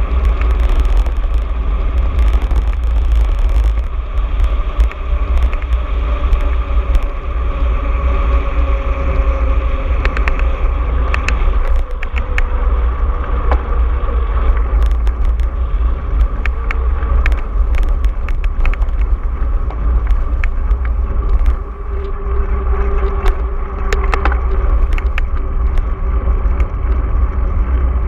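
Mountain bike riding over rough ground, with tyre noise and many scattered clicks and rattles from the bike, under a steady heavy wind rumble on the microphone.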